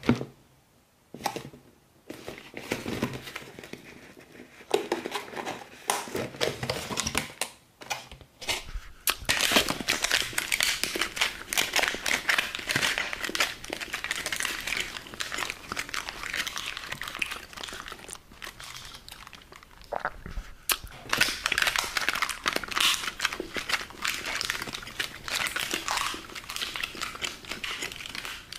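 Thin clear plastic of a takeaway salad bowl's lid and wrappings crinkling and crackling as it is handled and pulled off. A few short sharp clicks come first, then long stretches of dense crackling.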